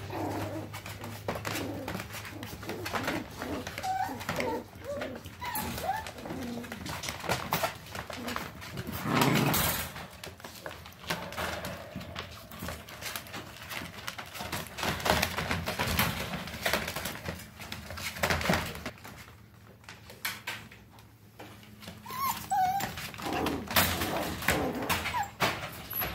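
Young puppies whimpering and squeaking in short high calls, over many small clicks and scratches of paws and bodies shuffling, with one louder bump about nine seconds in.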